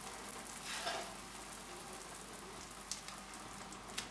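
Pot of chicken soup at the boil, a soft steady bubbling hiss, as homemade egg noodles are dropped into it, with a couple of faint ticks near the end.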